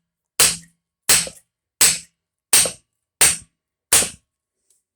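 Hammer striking wooden shims wedged into a wooden pallet's slots, six sharp blows about three-quarters of a second apart, driving the pallet boards apart.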